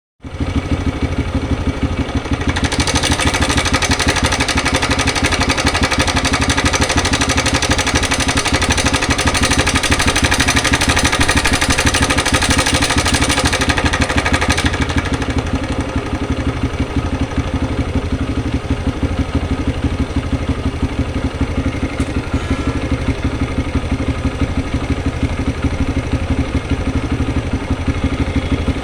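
TVS Raider 125 motorcycle's single-cylinder engine running steadily at idle, with a steady low pulse and a harsher, noisier stretch from about 3 to 15 seconds in. The engine noise is the one presented as a problem.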